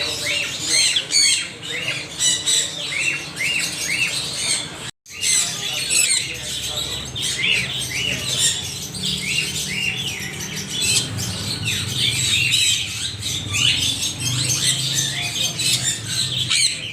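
Many parrots squawking and chattering at once in a dense run of short, high, overlapping calls, broken by a brief moment of silence about five seconds in.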